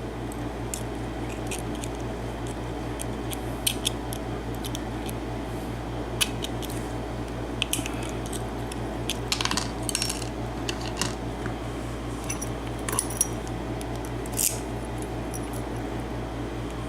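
Scattered light metallic clicks and clinks of a Dorma pin-tumbler cylinder lock and small tools being handled, over a steady low hum.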